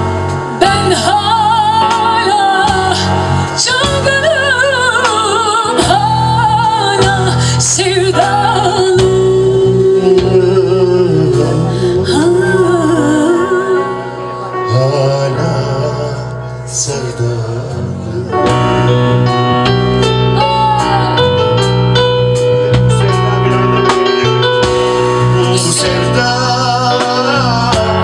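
Live Turkish pop duet: a man and a woman singing with a small band of keyboard, bass guitar and drums. The music drops quieter for a few seconds about halfway through, then comes back fuller.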